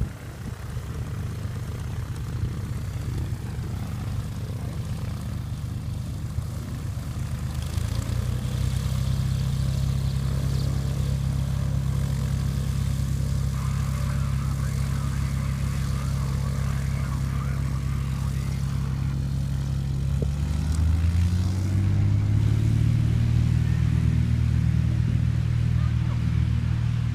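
Single-engine propeller towplane running on the runway. Its engine gets louder about eight seconds in, then rises in pitch and loudness again around twenty seconds in as it goes to full power for an aerotow takeoff with a glider on the line.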